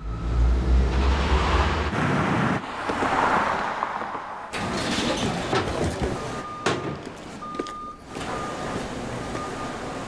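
Vehicle sounds: a deep engine rumble in the first two seconds, a swelling whoosh of noise, a few sharp knocks, then a run of short, high, irregular beeps over the last four seconds.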